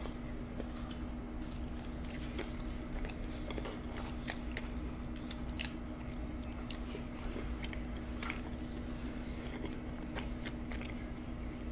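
Close-miked chewing and biting of deep-dish supreme pizza: wet mouth sounds and scattered small clicks, with one sharper click about four seconds in. A steady low hum runs underneath.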